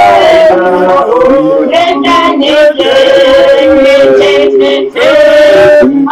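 A man singing loudly in long held notes that step up and down, with short breaks near three and five seconds in.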